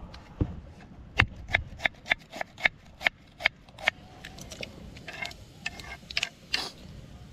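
A dull thump, then about nine sharp knocks at roughly three a second, followed by softer rustling sounds.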